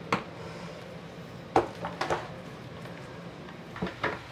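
Light clicks and knocks of small objects being handled and set down on a work table: one just after the start, a quick cluster of three or four in the middle, and two more near the end, over a faint steady hum.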